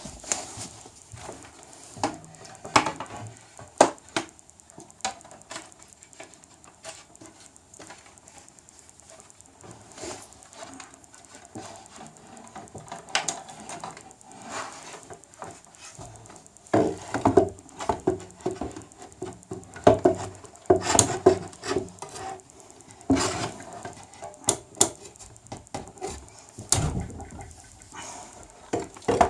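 Handling noise as a plastic power strip and its cables are pushed and fitted into a wooden holder under a desk: irregular knocks, clicks and scraping, sparse at first and busier in the second half.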